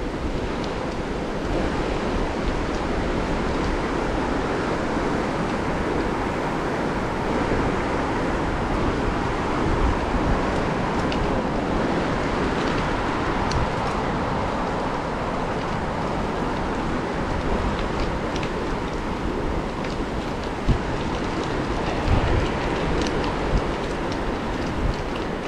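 Steady rush of wind on the microphone mixed with the rolling noise of a bicycle's tyres, with scattered small ticks and a few light knocks.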